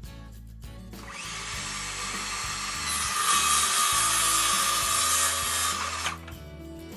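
Power saw cutting through wood: a steady cutting noise with a ringing tone starts about a second in, grows louder as the blade bites, and cuts off suddenly about five seconds later.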